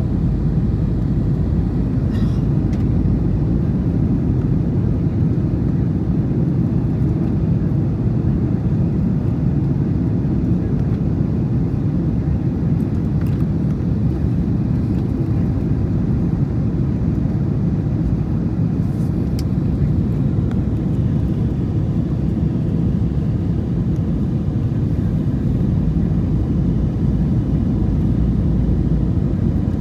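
Steady low cabin noise inside an Airbus A321 airliner descending on approach to land, with engine and airflow noise at an even level. A few faint clicks can be heard.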